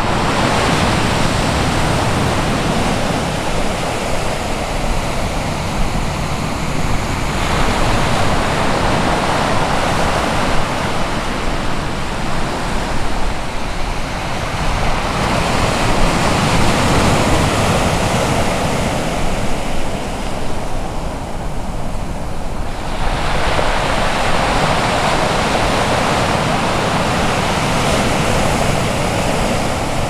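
Pacific Ocean surf breaking on the shore. The wash swells and eases every several seconds over a steady low rumble.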